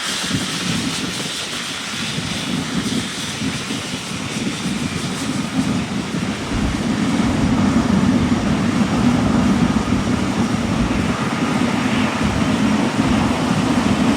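Steady jet-engine noise of a taxiing Boeing 777-200LR at taxi thrust, growing somewhat louder and deeper about halfway through.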